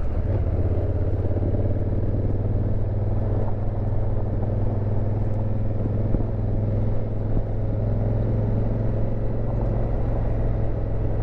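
2019 Honda Africa Twin CRF1000L DCT's parallel-twin engine running at a steady, even pace while riding.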